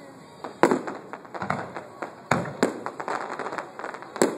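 Aerial fireworks shells bursting: four sharp booms, two of them close together in the middle, with quick crackling between them.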